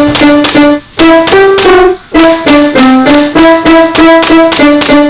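Background music: a quick melody of short, sharply struck notes in a steady rhythm.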